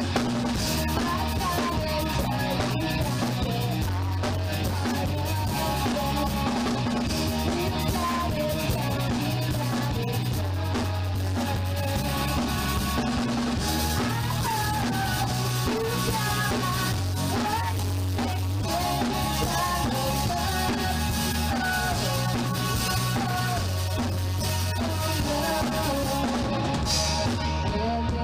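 Rock band playing a song at practice: drum kit, guitars and a low bass part that changes note every couple of seconds, in a rough, low-quality rehearsal recording.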